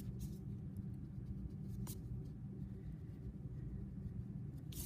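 A few faint pencil strokes on paper over a steady low hum.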